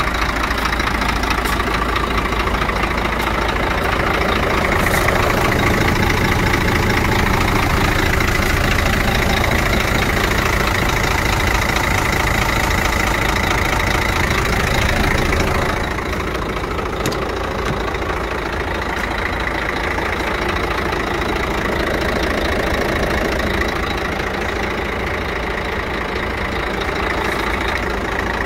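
Scania 114 truck's diesel engine idling steadily, dropping a little in loudness about sixteen seconds in.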